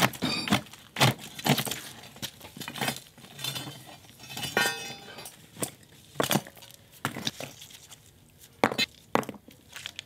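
Broken concrete chunks clinking and knocking against each other as they are levered with a steel pry bar and lifted out by hand: a string of irregular sharp knocks with scraping between them.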